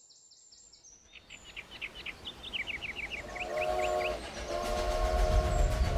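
Steam train sound effect: a multi-tone chime whistle blows a short blast and then a longer one, over a low locomotive rumble that builds near the end. Faint bird chirps come before it.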